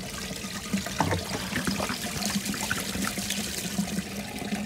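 Water and loosened old coolant sludge pouring and trickling out of a plastic engine coolant reservoir tipped upside down, as the reservoir is rinsed clean.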